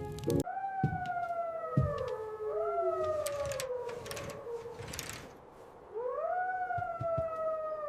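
A dog howling in long, falling whines, three calls in all, with a couple of low thumps between them.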